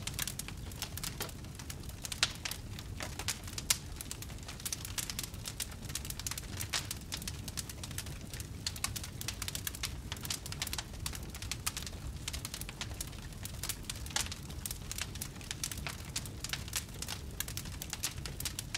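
Wood fire in a fireplace crackling and popping, a dense irregular run of small snaps with a few louder pops, over a steady low rumble.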